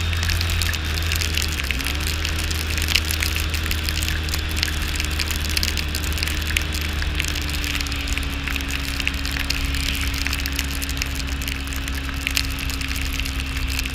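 A vehicle engine running steadily while driving through snow, its pitch dipping briefly about two seconds in and then holding a little lower. Over it, a constant crackling patter of snow and ice striking the camera.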